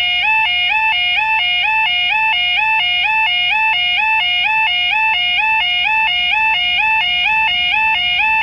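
Level crossing alarm, a yodel-type warning sounder, sounding with the barriers lowered: one loud tone switching rapidly and evenly between two pitches, warning that a train is approaching.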